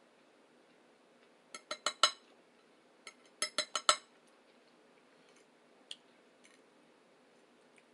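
Cutlery clinking against a plate in two quick runs of four or five sharp clinks, about a second and a half apart, followed by a few fainter ticks.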